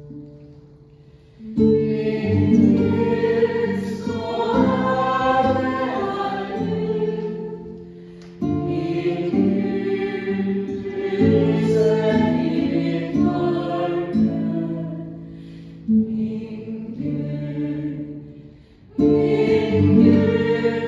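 Group of voices singing a slow Taizé chant in long, held phrases, a new phrase beginning after a short dip about 1.5, 8.5 and 19 seconds in.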